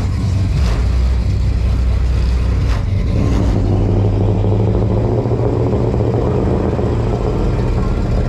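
Car engine and exhaust rumbling as custom cars on big rims drive past, the engine sound swelling a few seconds in.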